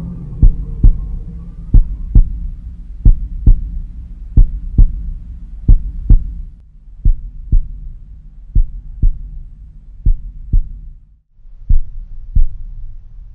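Heartbeat sound effect: pairs of low thumps, about one pair every second and a half, over a low droning hum. The beats space out slightly after about six seconds, and the hum drops out briefly near the end.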